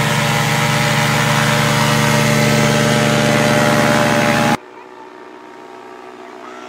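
Paramotor trike's engine and propeller running loud and steady at take-off power. About four and a half seconds in it cuts off abruptly, leaving a much fainter steady engine hum from the trike once it is airborne.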